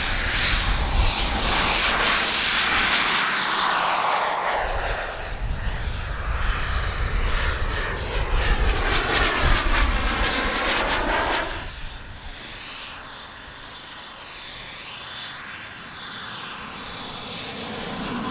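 The twin turbines of a Skymaster A-10 Warthog scale RC jet running: a high whine over a dense jet rush. The pitch sweeps as the jet passes close by, and about twelve seconds in the sound drops to a softer, steadier running.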